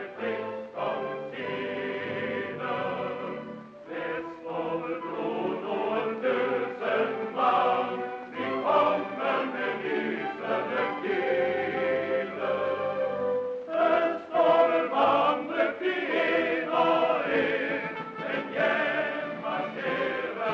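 A choir singing a song in Norwegian.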